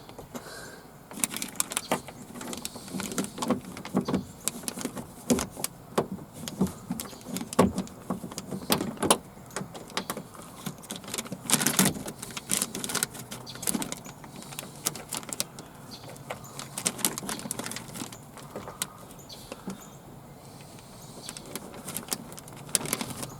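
Irregular metallic clicks, clinks and light knocks of bolts and hand tools being worked into a car door's inner panel while a replacement power-window motor is bolted in.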